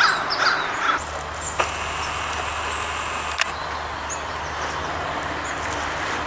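Motor vehicle engine running with a steady low hum, setting in about a second in, with a single sharp click near the middle.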